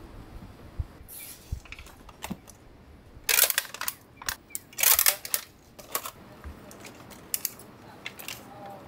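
Clear plastic clamshell packs and wrapping crinkling and clicking as dorayaki are packed by hand: an irregular run of sharp clicks and crackles, loudest around the middle.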